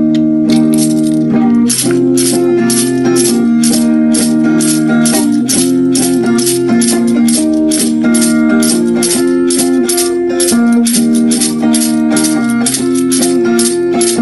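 Band music: an electric guitar strumming chords that change every second or two, with a hand-held shaker rattling a steady beat of about three shakes a second, coming in about half a second in.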